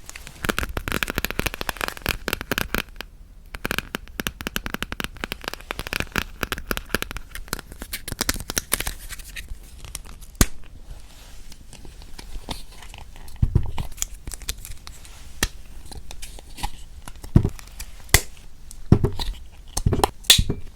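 Crinkly plastic wrapper of a yanggaeng (sweet red bean jelly) bar being torn open and crumpled close to the microphone, dense and crackling for about the first ten seconds. After that come scattered lighter clicks and a few soft thumps as the wrapper and jelly are handled.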